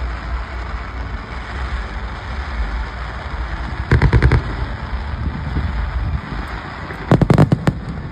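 Fireworks exploding in two quick rapid-fire clusters of bangs, one about four seconds in and one near the end, over a steady low rumble.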